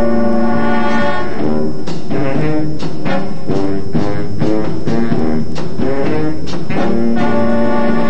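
High school marching band playing a brass-led piece: full held brass chords punctuated by sharp percussion strikes.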